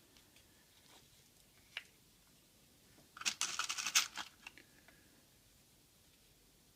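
A single sharp click, then about a second of crackling, crinkling handling noise from hands working with small workshop parts.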